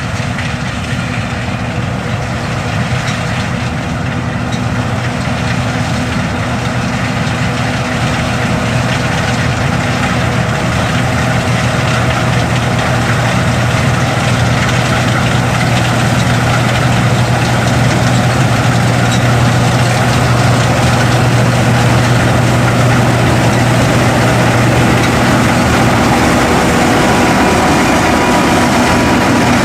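John Deere S550 combine's 271-horsepower engine and threshing machinery running steadily while harvesting, a continuous heavy drone. It grows louder over the first ten seconds or so, then holds steady.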